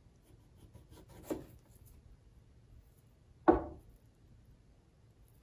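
Small kitchen knife cutting shallow slices off a raw potato on a plastic cutting board: quiet scraping cuts, a short cut sound about a second in and a louder, sharp one about three and a half seconds in.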